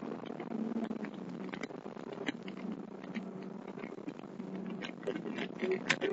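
Steady engine and road noise inside an autocross car at speed, with many short sharp clicks and crackles over it.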